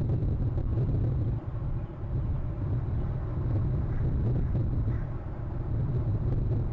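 Steady low outdoor rumble picked up by a camera's microphone, dipping briefly about a second and a half in.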